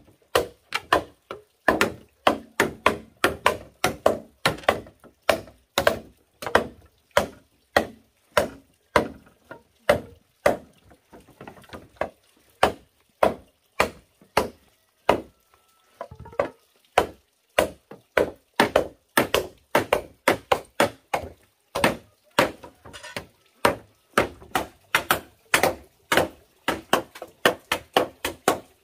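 Machetes chopping into green bamboo poles: a run of sharp, irregular strikes, about two to three a second, thinning out for a few seconds midway.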